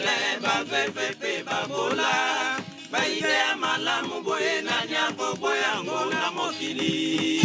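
A group of men singing together in chorus, with a guitar accompanying and a steady rhythmic beat.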